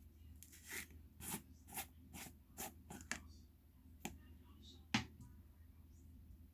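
Slime being handled, giving a run of short sharp pops, about two a second, then two more spaced out, the last one the loudest.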